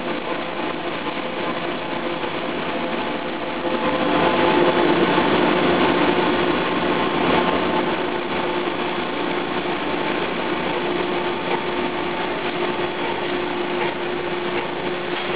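Pet food extruder running: its electric drive motor and belt-driven screw make a steady mechanical hum with a few steady tones, louder for a few seconds about four seconds in.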